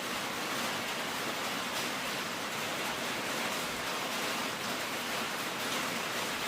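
Light rain falling on the uninsulated metal roof and walls of a steel building, a steady hiss that sounds like a storm and a half.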